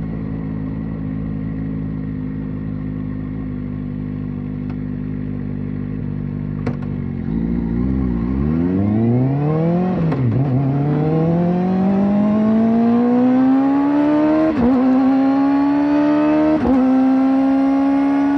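Kawasaki ZX-4RR's inline-four engine with a slip-on exhaust, running at a steady note, then revving up about seven seconds in under acceleration. The pitch drops sharply at a gearshift about ten seconds in, climbs again, and holds high, with two brief dips near the end.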